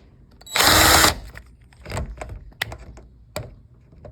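A power drill spins briefly, for about half a second, with a steady motor hum under the noise. It is followed by about five separate clicks and knocks of tool on metal door hardware.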